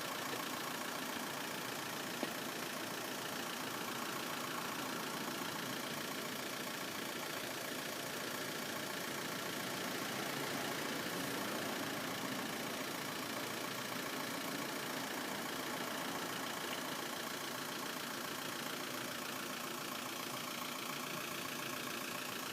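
Steady hum of an idling road vehicle engine, even throughout, with a single small click about two seconds in.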